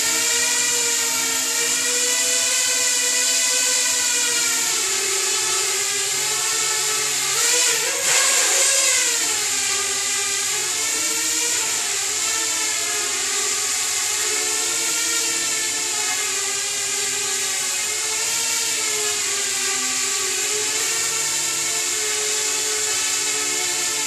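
Parrot Bebop quadcopter drone flying, its four propeller motors whining with a pitch that keeps rising and falling as it manoeuvres. There is a brief louder surge about eight seconds in.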